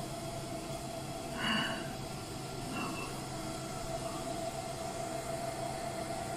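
Laser rust-cleaning machine running, a steady hum with one constant tone over a hiss. A brief louder noise comes about one and a half seconds in.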